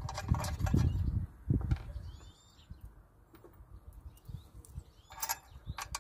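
Hands fitting a steel bracket, bolts and nuts onto an electric hoist's sheet-metal casing: low knocks and rumbles in the first second and a half, then sharp metallic clicks near the end. Faint bird chirps are heard in the quiet middle.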